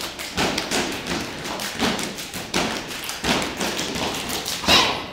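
A step team stepping: a rhythmic run of sharp foot stomps and hand claps, about three hits a second.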